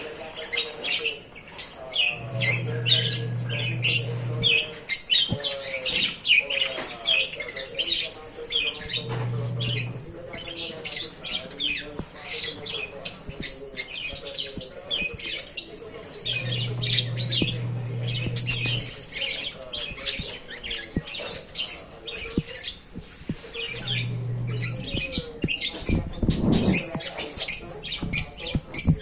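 A flock of aviary birds chirping and squawking in many short, overlapping high calls without a break. A low steady hum comes and goes four times underneath.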